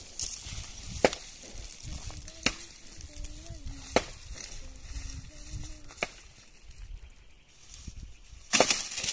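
Four sharp strikes about a second and a half apart, the kind made by chopping or hammering, with a low wavering tone under the middle ones. A louder rushing hiss starts near the end.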